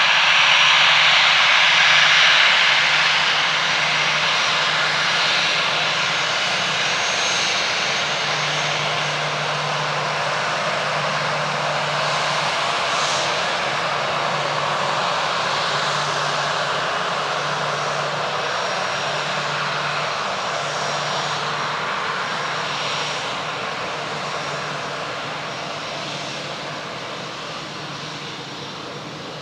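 Airbus A320's twin CFM56 turbofans at taxi power: a steady jet hiss with a thin high whine, loudest a couple of seconds in and then slowly fading as the airliner taxis along.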